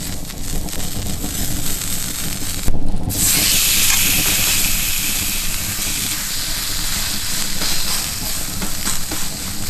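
Meat sizzling on a hot griddle. A thump about three seconds in is followed by a loud, even sizzle that slowly eases off.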